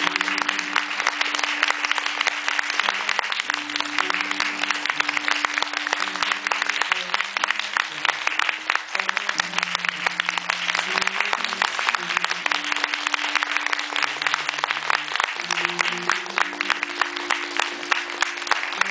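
Theatre audience applauding, a dense steady clatter of many hands, over instrumental music with sustained low chords that change every second or two.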